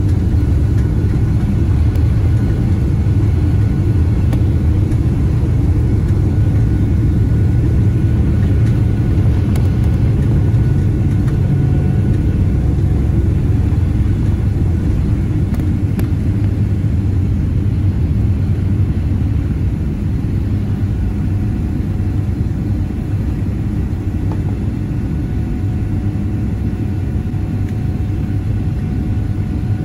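Boeing 777-300ER's GE90 engines at takeoff power, heard inside the cabin: a steady, loud, low roar with a faint fan whine, as the jet finishes its takeoff run and climbs away. The low rumble eases a little about two-thirds of the way through.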